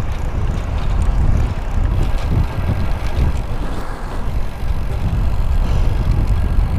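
Steady low rumble of wind buffeting the microphone of a rider cycling through city traffic, with the noise of road vehicles mixed in.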